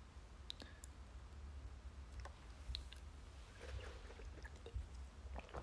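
Faint scattered clicks and handling noise from a clear plastic water bottle being lifted and drunk from, over a low steady hum.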